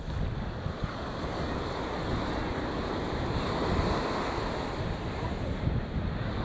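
Ocean surf breaking and washing up the beach, a steady rushing wash, with wind rumbling on the microphone.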